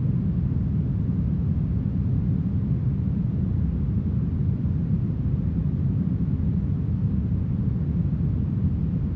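Smoothed brown noise: a steady, deep hiss with most of its weight in the low end, unchanging in level.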